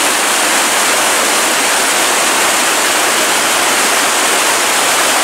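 Rushing creek water, a loud, steady, even hiss with nothing else standing out.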